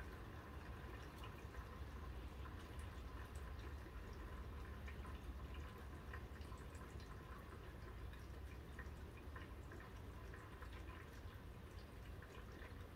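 Light rain falling, heard as a soft steady hiss with many small, irregular drop ticks, over a faint low hum.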